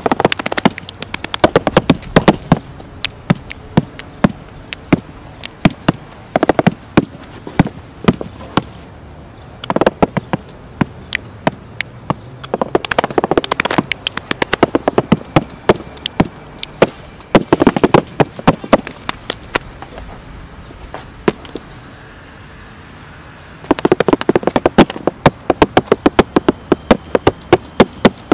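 Dense, irregular crackling: rapid sharp clicks and pops that come in thick clusters and thin out for a few seconds at a time.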